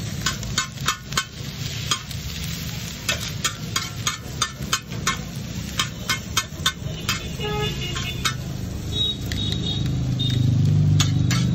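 Metal spatulas clinking and scraping on a large flat iron griddle as Maggi noodles are chopped and mixed, with sharp irregular clinks a few times a second. Under it runs a steady low hum, which swells into a louder rumble near the end.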